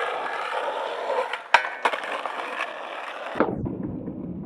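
Skateboard wheels rolling on pavement, with two sharp clacks of the board about a second and a half in. About three and a half seconds in the rolling sound abruptly turns dull and low.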